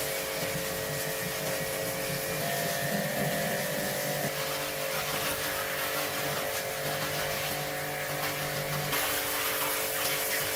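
A small motor running steadily, its hiss changing about nine seconds in.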